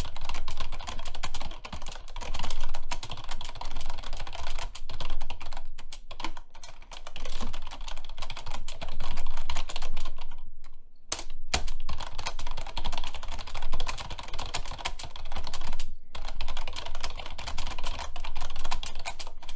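Fast, hard typing on a computer keyboard, a dense stream of key clicks with brief pauses about ten seconds in and again about sixteen seconds in.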